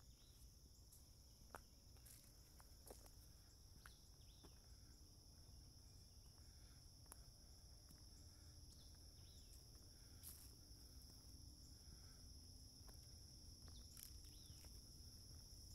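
Faint, steady chorus of crickets or katydids, with a few scattered sharp ticks and snaps.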